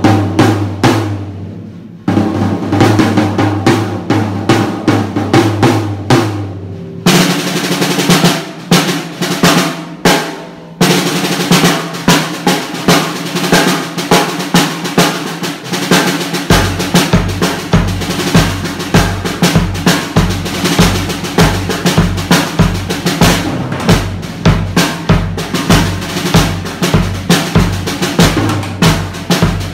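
Early Taiwanese-made Lazer acoustic drum kit (22-inch bass drum, 14-inch snare, 12–16-inch toms) being played: low tom strokes at first, then a steady groove on snare and cymbals, with the bass drum coming in on a regular beat about halfway through.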